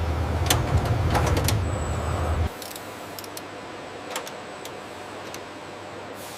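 Low machine hum with sharp clicks and clanks over it, cutting off abruptly about two and a half seconds in and leaving a quieter background with a few faint ticks.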